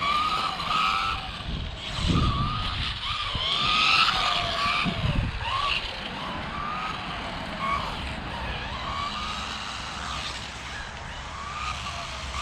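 Electric motor of a 1/12-scale RC buggy whining, its pitch rising and falling over and over with the throttle, over a hiss of tyre noise. There are two short low rumbles about two and five seconds in.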